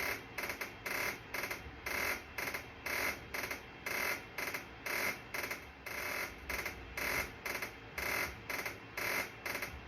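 Rhythmic electronic buzzing pulses repeating evenly at about two a second, each a short burst of buzz.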